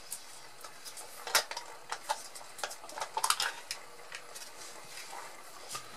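Light, irregular clinks and taps of kitchen utensils against a container, the sharpest about a second and a half in and a quick run of them around three seconds in.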